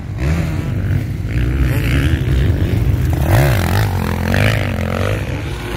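Several motocross motorcycle engines running and revving at once, their pitch rising and falling with the throttle, one swelling up and dropping back sharply about three and a half seconds in.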